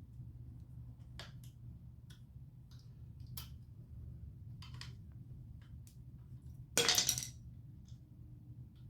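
Scattered light clicks and taps from hands working a bicycle's rear derailleur and shift cable, with one louder half-second rattle about seven seconds in, over a steady low hum.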